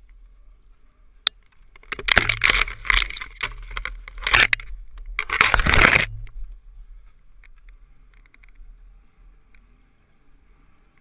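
Snowmobile riding through deep snow: a low engine rumble throughout, a sharp click a little over a second in, then loud rough noise in several surges from about two to six seconds in before it settles back to the quiet rumble.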